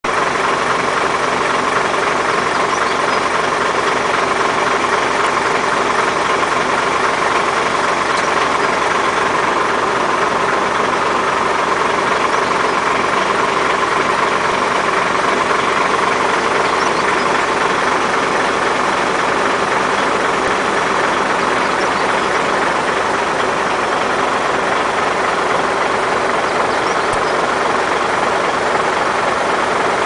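A steady engine hum that holds the same level and pitch throughout, like a motor idling.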